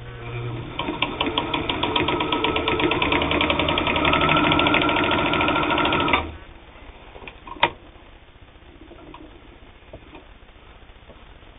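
Janome-made New Home manual zigzag sewing machine stitching through two layers of denim: it picks up speed over the first couple of seconds, runs steadily with a fast, even clatter of needle strokes, and stops abruptly about six seconds in. A single sharp click follows shortly after.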